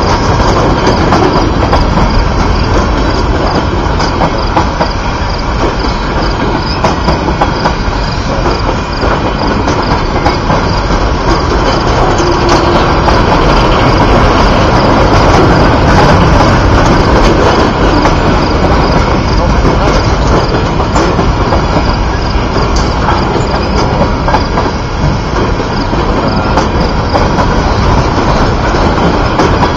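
Freight train of loaded sand gondola cars rolling past close by: a steady, loud rumble of steel wheels on rail, with clicking over the rail joints and some thin wheel squeal.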